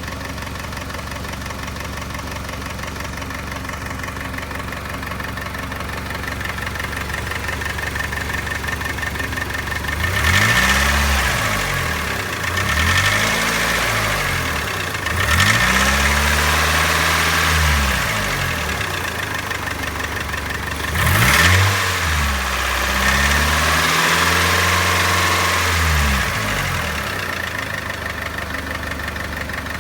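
Mitsubishi 4G64 2.4-litre SOHC four-cylinder engine idling with a tapping/knocking noise, then revved in about five short blips that rise and fall back to idle, starting about a third of the way in. The tap remains after an oil flush and new primed lash adjusters.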